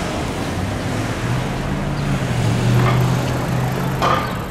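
Busy city street traffic: vehicles driving past, with a low engine hum swelling through the middle and one short sharp sound near the end.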